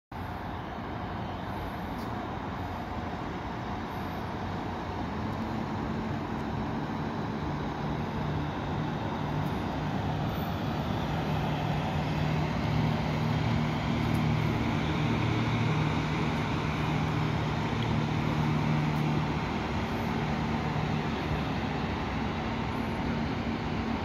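A boat's engine running steadily with a low, even hum under a continuous rushing noise while the boat is under way.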